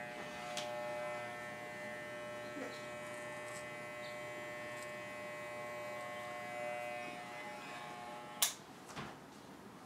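WAHL Basic electric pet clipper running with a steady hum as it trims the fur around a miniature schnauzer's ear. It cuts off with a sharp click about eight and a half seconds in.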